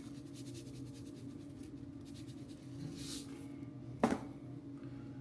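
Light, rapid shaking and scratching of a seasoning shaker sprinkling spice over the fish, with a short hiss about three seconds in and one sharp clack, like a bottle or lid being set down, about four seconds in. A steady low hum runs underneath.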